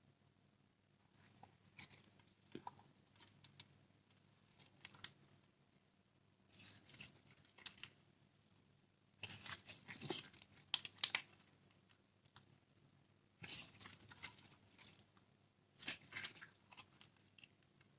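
Slime being squished, stretched and folded by hand, making sticky crackles and sharp little pops. These come in bursts of a second or two with short silent pauses between them.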